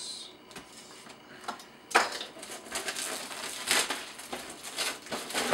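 A cardboard model kit box being opened and its contents handled: a sharp snap about two seconds in, then a few seconds of crinkling and rustling of paper and plastic wrap.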